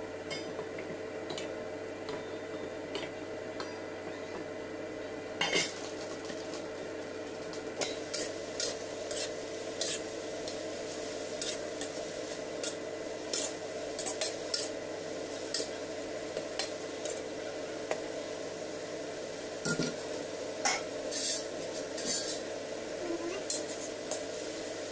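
Spatula scraping and clinking against a wok as sliced green chilies and meat are stir-fried, with a sizzle and a steady hum underneath. One louder clank comes about five seconds in, and the irregular scrapes follow.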